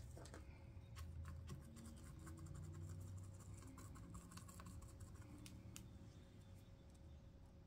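Faint scattered scratches and light clicks of metallic deco mesh and pipe cleaners being handled and pressed down with a small wire cutter, over a faint steady hum.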